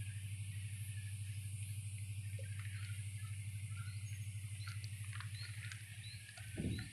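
Steady low hum with a fast, even pulsing, heard inside a passenger train carriage, under a faint hiss and scattered faint high chirps and clicks. Near the end the hum drops away and a short low thump follows.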